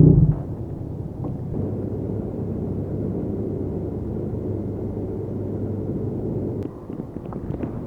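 Yamaha MT-09's three-cylinder engine through a Yoshimura R55 slip-on exhaust, dropping off sharply as the throttle closes and then running low and steady, off the throttle. It quietens further near the end, with a few light clicks.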